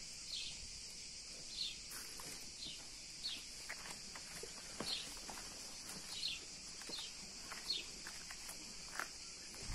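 Birds chirping outdoors, short falling chirps about once a second over a steady high hiss, with a few soft footsteps on paving.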